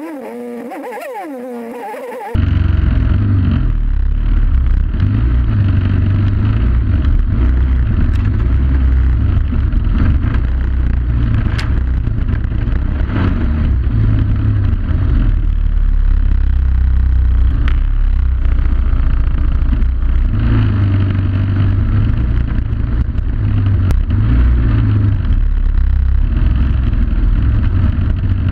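Suzuki DR800 motorcycle's big single-cylinder engine running under way on a dirt trail, heard from the onboard camera as a loud, steady rumble that swells and eases with the throttle. About two seconds in, a quieter sound with a wavering pitch cuts off abruptly into the louder rumble.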